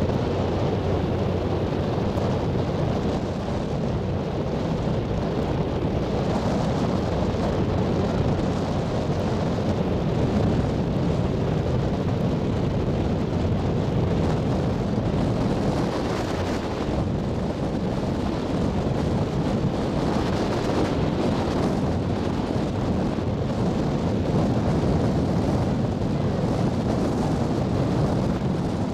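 Steady low drone of a harbour ferry's engines under way, with a faint constant hum, mixed with wind buffeting the microphone.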